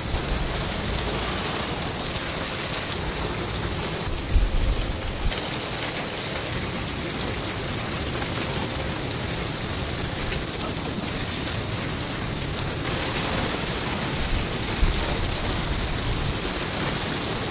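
Steady hiss of falling or running water. A few low thumps come about four seconds in, and one more near the end.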